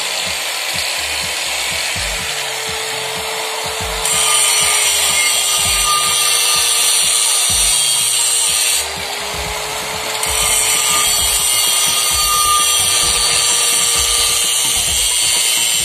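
Handheld electric angle grinder running steadily and grinding against the inside braking surface of a Bolero pickup's cast-iron brake drum. The grinding gets louder and harsher about four seconds in, eases for a second or so near nine seconds, then is heavy again.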